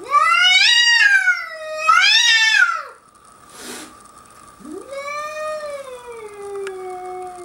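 Domestic cat caterwauling: two loud yowls that rise and fall in pitch, then a longer yowl that slides steadily downward. It is a defensive warning at an intruding bobcat.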